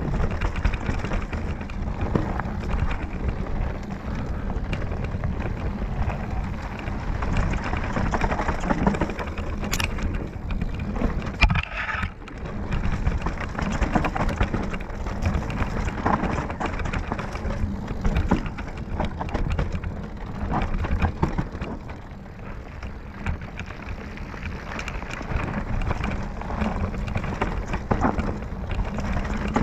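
Mountain bike riding down a dry dirt singletrack, heard from a camera on the bike: a continuous crunch and rattle of the tyres over dirt and stones, with the frame and chain clattering over bumps. A sharp knock about ten seconds in.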